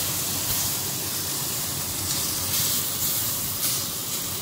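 Beef steak sizzling steadily on a hot ridged grill pan, just turned over to sear its second side.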